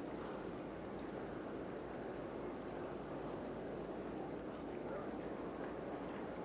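Container ship under way close offshore: a steady low rumble of its engine mixed with the wash of water along its hull.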